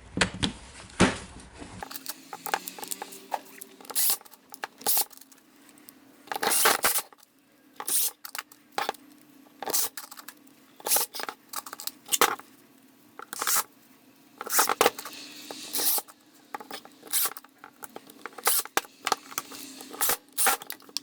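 Irregular clicks, knocks and short scrapes of plastic drill housing parts being handled and fitted together as a cordless drill is closed up.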